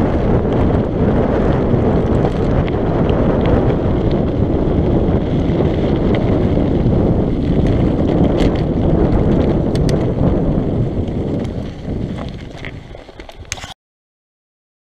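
Wind buffeting an action-camera microphone over the rumble of mountain-bike tyres on a loose gravel track, with a few scattered sharp clicks. The noise weakens after about twelve seconds and cuts off suddenly near the end.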